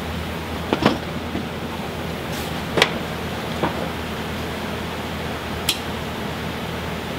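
Steady rushing air noise of a running homemade powder-coating oven, with four short sharp clicks, the loudest about three seconds in.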